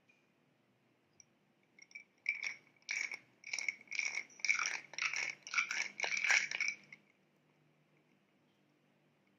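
Close-miked chewing of a soft strawberry cream milk bun, wet mouth sounds at a steady rate of about two a second. They start about two seconds in and stop about seven seconds in.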